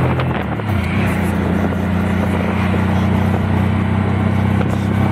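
Keke auto-rickshaw's small engine running steadily under way, heard from inside the open-sided passenger cabin with road and wind noise. The engine note shifts about half a second in, then holds even.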